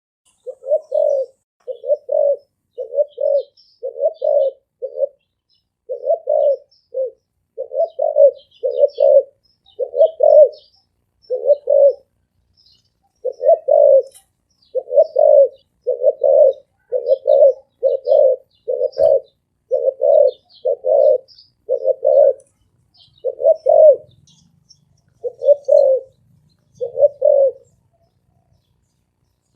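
Male spotted dove cooing over and over in a deep, resonant voice, its low coos coming in quick runs of two or three with short pauses between. Faint high chirps of small birds sound behind it.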